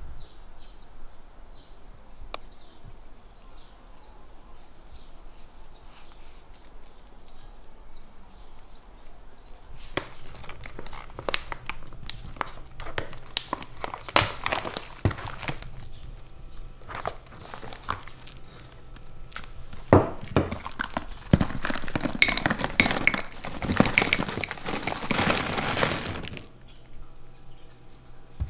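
Kraft-paper pouch of brown sugar crinkling and rustling as hands tear and pull it open, in irregular bursts of crackling with sharp clicks starting about ten seconds in. The crackling grows denser and louder near the end, then stops abruptly.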